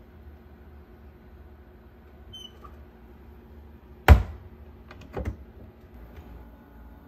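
A cabinet door shut with one loud, sharp clack about four seconds in, followed about a second later by a quick pair of clicks from its push-button combination lock.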